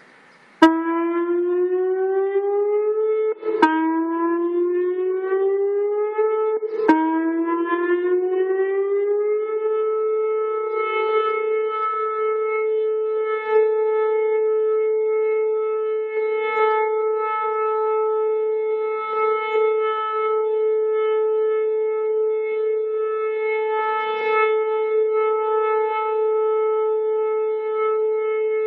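Outdoor tornado warning siren sounding for a regular test. It starts with a sharp click and a rising pitch that breaks off with a click and restarts lower twice, then holds one steady tone from about ten seconds in.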